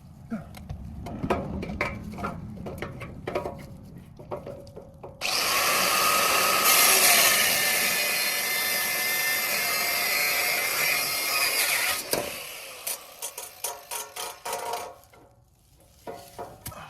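Metal clinks and knocks, then a power tool runs hard on the exhaust's last attachment point for about seven seconds and stops abruptly, followed by more rattling clanks of metal.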